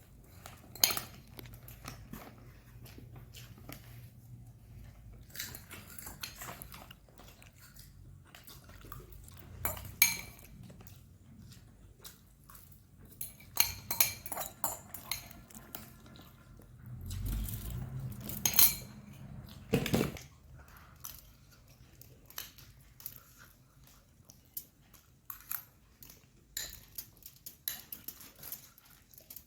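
Close-up eating: a utensil clinking against a dish now and then, between crunching and chewing of food, with a few louder clinks and a quick patter of small clicks near the end.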